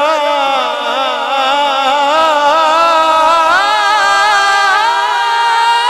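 Male voice singing a Punjabi naat through a public-address system, drawing out one long melismatic line on the word "Zahra" with the pitch sliding and wavering, with no instruments.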